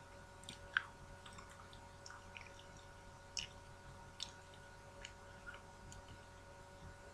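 Quiet close-up chewing of sushi: soft wet mouth sounds with a scattering of small sharp clicks, the loudest about a second in and two more around the middle.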